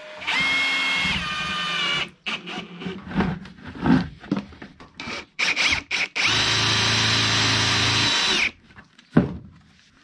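Ryobi cordless drill driving screws through a plastic toy wheel into the bottom of a plastic bucket: two runs of about two seconds each, the first dropping in pitch partway through, with clattering and knocking between them.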